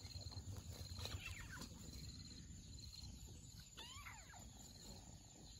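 Kittens mewing faintly: a couple of thin high falling mews about a second in, then a clearer short mew that rises and falls about four seconds in.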